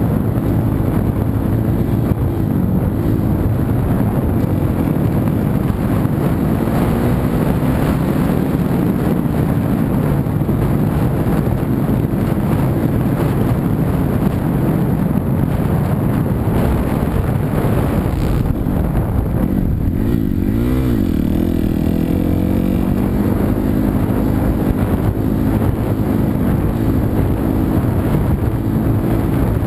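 A 250cc four-stroke single-cylinder motocross bike engine running hard under way, its pitch wandering up and down with the throttle. About two-thirds of the way through the note drops briefly, then climbs again as the throttle is rolled off and back on.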